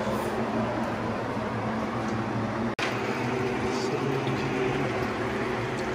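Steady low mechanical hum with a brief dropout about three seconds in.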